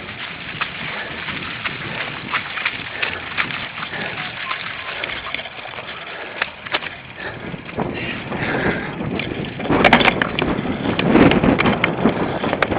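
Cyclocross bike rattling and clattering over a rough course, with tyre noise, getting louder about eight seconds in.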